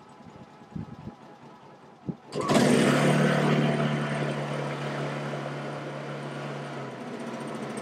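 Honda EU2000i inverter generator's single-cylinder four-stroke engine firing up about two seconds in, after a few small knocks, then running steadily and easing down in level. It starts after the carburetor was cleaned and the mixture lever at the rear of the carb was adjusted.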